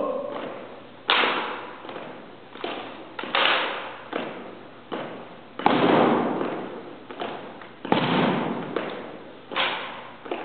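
Rifle drill: about a dozen sharp smacks and knocks, each dying away in a long hall echo, as hands strike the rifles and the rifles are brought down and spun.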